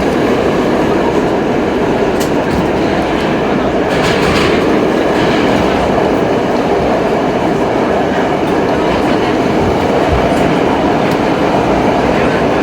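An R32 subway car in motion, heard from inside the car: a loud, steady noise of the train running on the track, with a few faint clicks from the rails.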